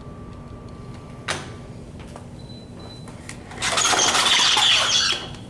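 A single click about a second in, then about a second and a half of loud, irregular rustling and scraping noise near the end.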